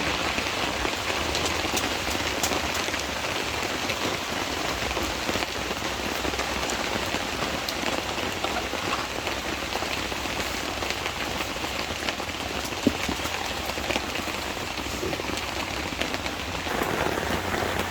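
Steady rain falling, with scattered individual drops ticking close by and one louder tap partway through.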